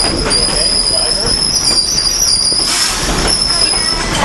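Steel wheels of a narrow-gauge steam train squealing against the rails as it rolls along: a high, steady squeal that wavers slightly in pitch, over the running rumble of the train.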